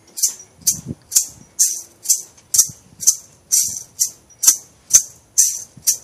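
A shaker rattling out a steady beat, about two shakes a second, each a short crisp hiss.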